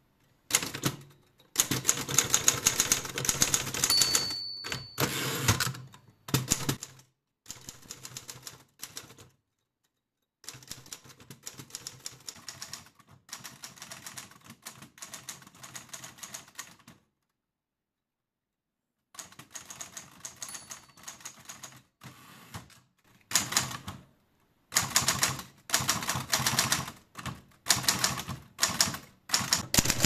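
Torpedo 6 manual typewriter being typed on, with keys and typebars clacking in fast runs and short pauses of one or two seconds between them. The middle stretch is quieter. A short high ring comes about four seconds in.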